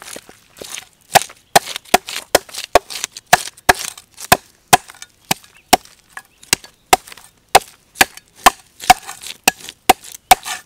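A cleaver scraping the scales off a large whole fish on a wooden chopping board: a sharp click or knock with each stroke, about two to three strokes a second.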